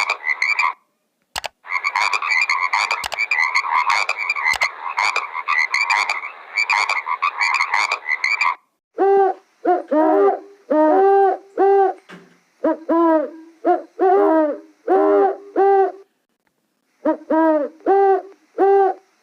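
Animal calls: for about the first eight seconds a dense, rapid croaking chorus like frogs. After a brief gap comes a series of short, repeated hooting calls in groups, with a pause of about a second near the end.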